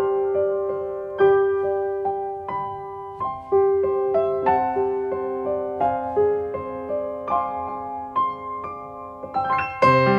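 Background piano music: a melody of single notes, each struck and left to ring out.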